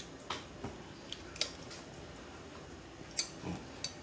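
Light metallic clicks and taps from the steel lid fittings and pressure gauge of a pressurized popcorn popper being turned in the hands and checked for tightness, a handful of scattered clicks with the sharpest near the end.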